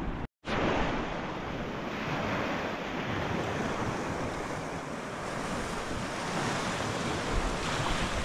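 Steady rush of moving water, with wind buffeting the microphone. It cuts out briefly just after the start.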